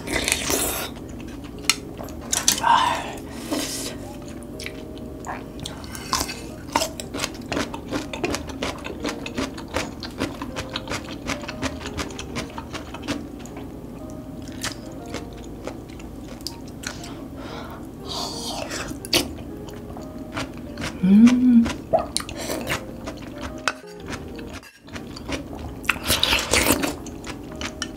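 Close-miked eating of thick chueotang (loach soup) from a spoon: wet chewing and mouth clicks throughout, with slurps about three seconds in, near the middle, and near the end as soup is sipped from a ladle. Faint background music under it.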